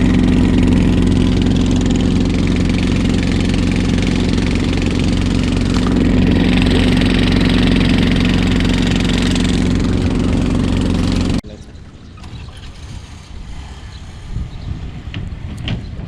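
Engine running with a steady drone that cuts off abruptly about eleven seconds in, leaving a much quieter rushing noise.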